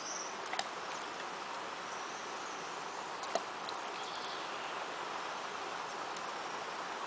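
Steady outdoor ambience: an even hiss with faint high chirps, likely insects, and a few small clicks.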